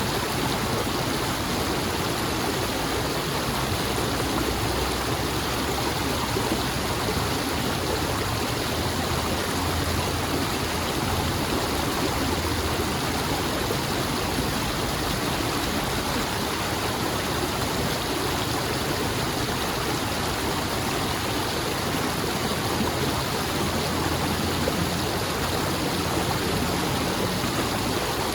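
Flowing water of a stream or brook, a steady unbroken rushing and burbling.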